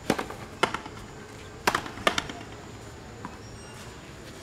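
Frontenis rally: the rubber ball struck by strung rackets and smacking off the front wall and floor. About five sharp cracks come in the first two and a half seconds.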